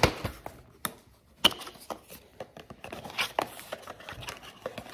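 Handling of a cardboard perfume box and its glass bottle: scattered light taps and clicks, with one sharper click about one and a half seconds in.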